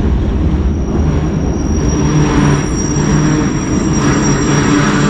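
Iron ore train of the Mauritanian desert line: a loud, steady rumbling and clattering of the heavy ore wagons, with a thin high whine held above it.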